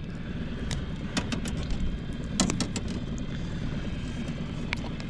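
Steady low rumble of a running engine, with scattered sharp clicks and knocks.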